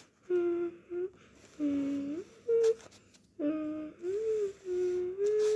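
A person humming a tune: a string of short held notes that step up and down in pitch, with brief pauses between them.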